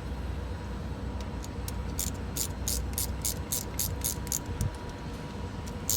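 Hand ratchet clicking in a quick, even run, starting about a second and a half in, as it is worked back and forth to back out a diesel glow plug. A low steady hum sits underneath.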